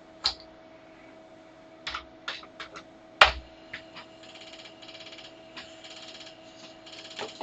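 A 5.25" floppy disk is slid into a Commodore 1541 disk drive with several clicks and a sharp clack about three seconds in as the door latch shuts. From about four seconds in, the drive spins the disk with a steady hiss while it fails to read the disk, sounding as unhealthy as it did with the test disk.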